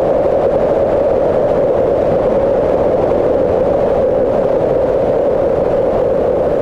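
Dark ambient soundscape drone: a steady rushing wash of filtered noise, strongest in one narrow middle band, with no beat or melody.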